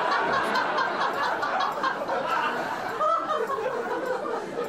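Canned laugh track: a recorded audience laughing and chuckling together, cued just before by the host.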